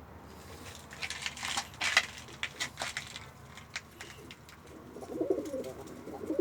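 Domestic pigeons: a run of sharp clicks and rustling about a second in, then a pigeon cooing near the end.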